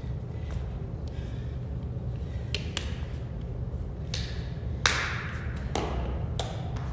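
Light taps and clicks from a drinks bottle being handled and set down, and shoes on a hard floor, with one sharper knock about five seconds in, over a steady low hum.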